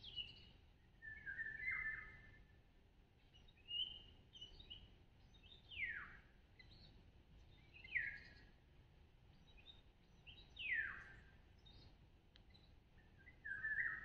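Songbirds calling in short, separate phrases every two seconds or so, several of them quick notes that slide steeply down in pitch.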